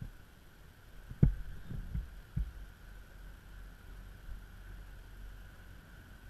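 Steady low hum of a boat under way, with four dull thumps between about one and two and a half seconds in, the first the loudest.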